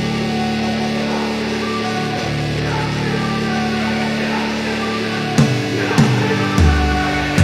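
Background music: sustained guitar-led rock, with drum hits and a heavier bass part coming in about five seconds in.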